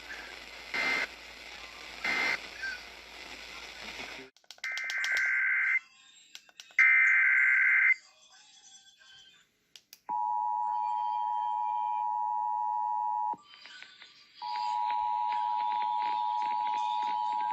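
Static-filled radio audio with a short beep about every second and a half. It cuts off about four seconds in to an Emergency Alert System activation: two loud screeching bursts of SAME digital header data, about a second each, then the steady two-tone EAS attention signal (853 and 960 Hz), which breaks off for about a second and resumes.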